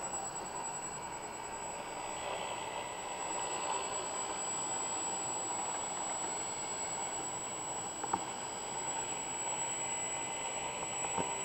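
Homemade CNC machine on furniture drawer slides running: a steady high whine from its motors, with two short clicks about eight and eleven seconds in.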